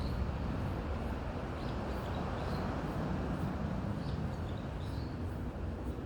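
Wind rushing through forest trees, a steady low noise, with a small bird giving a few short high chirps scattered through it.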